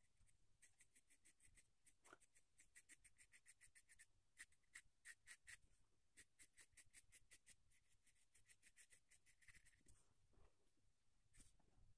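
Graphite pencil shading on drawing paper: faint, rapid back-and-forth scratching strokes, several a second, in runs with short pauses, stopping shortly before the end.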